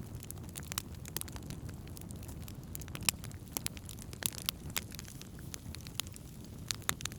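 Wood campfire burning and crackling, with irregular sharp pops and snaps over a steady low rush of flame.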